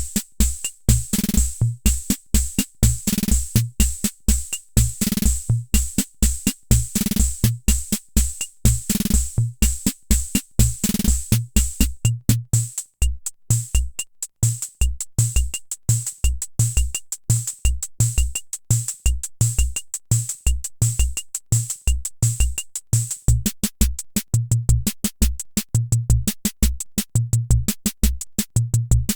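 Hammond Auto-Vari 64 analog rhythm machine playing a preset beat: repeating kick-drum thumps with hissing cymbal and short tick sounds. About twelve seconds in, the pattern changes to a denser run of short clicks over the kick.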